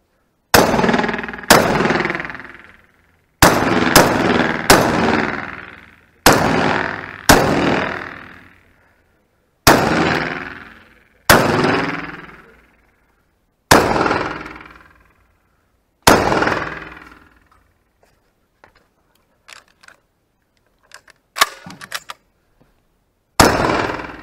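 Beretta shotgun firing twelve shots, singly and in quick pairs, each blast followed by a long echo off the surrounding concrete-block walls. A pause of several seconds near the end holds only quiet clicks before a final shot.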